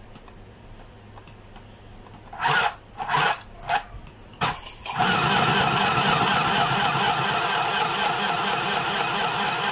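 Portable mini electric sewing machine starting up. Its motor and needle run in four short spurts, then run steadily from about halfway through.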